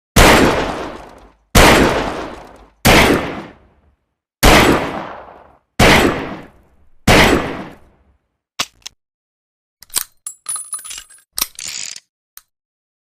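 A Saturday night special revolver fires six shots, each about a second and a half apart and ringing away for about a second. After the last shot come a few seconds of light metallic clicks and clinks.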